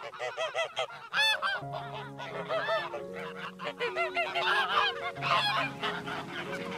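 Domestic geese honking, a rapid run of short, repeated calls several times a second.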